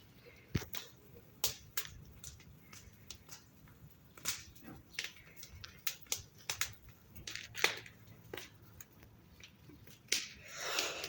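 Bonfire crackling: irregular sharp pops and snaps of burning wood, several a second, with a short burst of rushing noise near the end.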